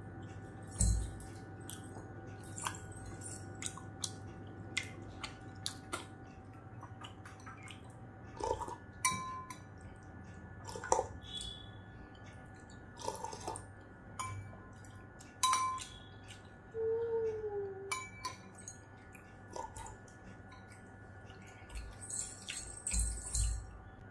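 A metal spoon clinking and scraping against a glass bowl in short strokes with brief ringing pings, as thin broth is sipped from the spoon with slurps and wet mouth clicks. The spoon is then set down on a plate.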